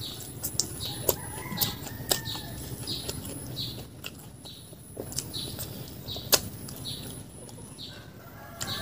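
Close-miked chewing of a mouthful of fried rice and fish mint leaves: wet chewing about twice a second with sharp mouth clicks and smacks.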